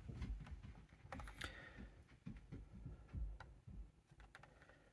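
Faint, scattered clicks and ticks of a plastic blister-pack toy-car card being handled in the fingers, with a low rumble of hand movement.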